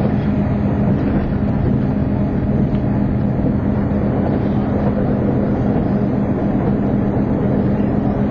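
Diesel limited-express train running at speed, heard from inside the passenger car: a steady low hum with even running noise from the wheels on the rails.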